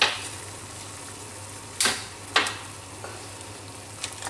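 A large pot of water at a rolling boil, bubbling steadily, with three sharp cracks, one at the start and two close together about two seconds in, as the feelers are snapped off a spiny lobster.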